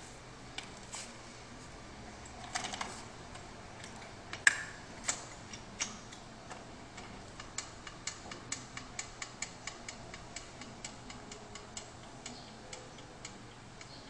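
Hospital transport stretcher's mechanism clicking as a lever at its base is worked: a few louder metal clacks in the first half, then an even run of light clicks, about three a second, while the deck tilts.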